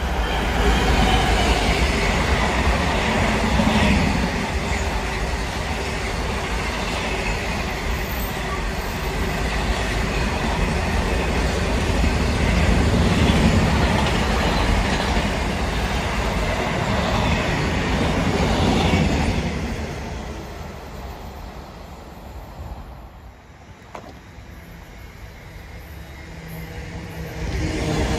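A Class 66 diesel locomotive passes hauling a long container freight train: its two-stroke diesel engine runs first, then comes a steady rumble and clatter of wagon wheels on the rails. The sound fades away after about twenty seconds. Near the end a Class 350 electric multiple unit approaches and grows louder.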